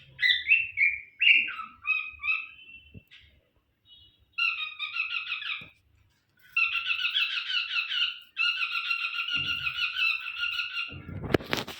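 Cockatiel chattering in fast runs of rapidly repeated chirps, with a few gliding whistled calls in the first couple of seconds and short pauses between the runs. A brief burst of noise comes near the end.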